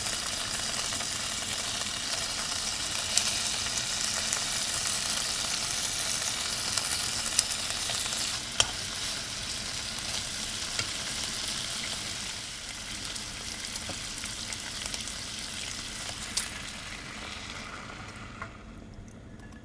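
Food sizzling and crackling in a hot pan: a steady hiss with a few sharp pops. The sizzle dies down near the end.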